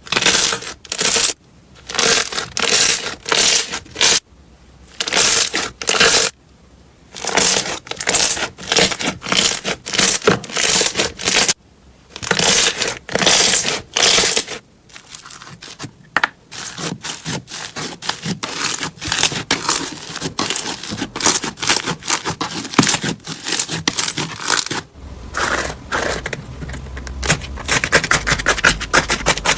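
Slime being squeezed and worked by hand, crackling and popping in repeated bursts about half a second long. From about halfway, the crackle turns denser and quicker, ending in rapid, even clicking.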